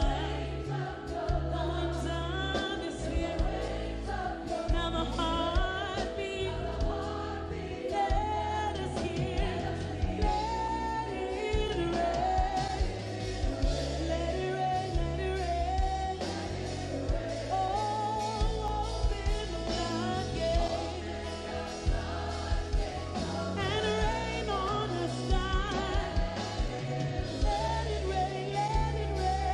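Live gospel worship song: a woman sings the lead melody over a band with keyboards, a deep sustained bass line and backing singers.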